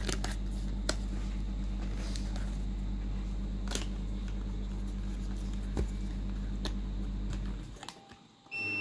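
Cardboard box of a webcam being opened by hand: scattered sharp clicks and snaps of the packaging over a steady low hum, which drops away shortly before the end. A brief high tone sounds near the end.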